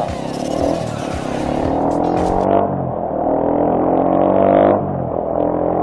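Motorcycle engine pulling away, its pitch rising steadily for a few seconds, then easing off near the end.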